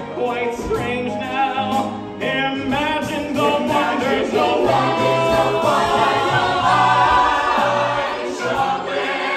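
Musical-theatre song: several voices singing together over band accompaniment with a moving bass line.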